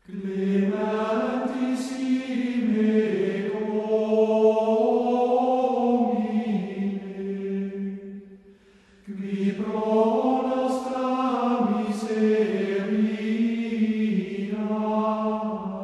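Slow sung chant, voices holding long, slowly moving notes in two long phrases with a short break a little past halfway.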